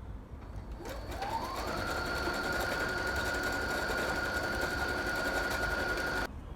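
Electric sewing machine starting about a second in, its motor speeding up with a rising whine to a steady run as it stitches, then stopping abruptly near the end.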